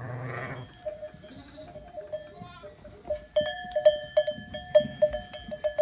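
A sheep bleats loudly at the start, with the flock of ewes around it. From about three seconds in, a series of sharp metallic clanks rings out two or three times a second, each leaving a steady ringing tone.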